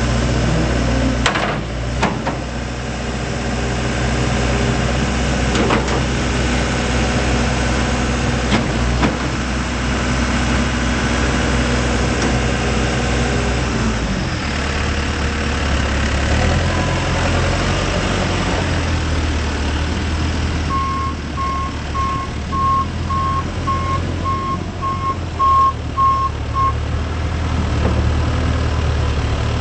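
A Case 580M backhoe loader's diesel engine runs steadily, with a few sharp clunks in the first several seconds, and drops to a lower speed about halfway through. Later its reversing alarm beeps about twice a second for some six seconds.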